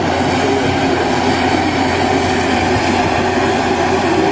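Amphibious long-reach excavator running steadily as it drives on its pontoon tracks through the water, a constant engine hum under a steady mechanical rumble.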